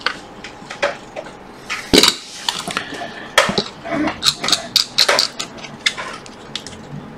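Clicks and clatter of a metal PCB board holder as its clamp jaws are slid and a phone logic board is set into it, a string of sharp knocks with the loudest about two seconds in.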